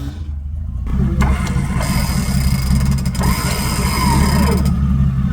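Off-road 4x4's engine running steadily at low revs, filling out about a second in.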